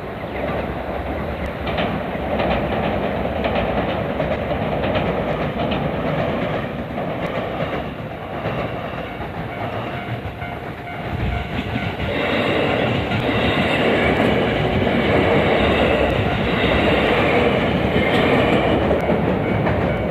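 Electric commuter train running past on the rails, wheels clicking over rail joints, growing louder about twelve seconds in and staying loud until near the end.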